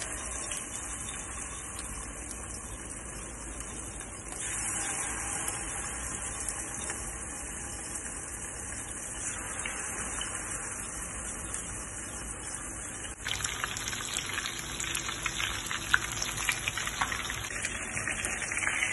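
Spice-marinated chicken pieces frying in hot oil in a frying pan: a steady sizzle that grows louder and fills with crackling pops in the last third.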